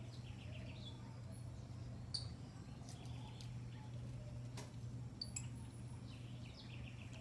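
Monkeys' short, high-pitched chirping calls, coming in scattered little clusters, over a steady low hum.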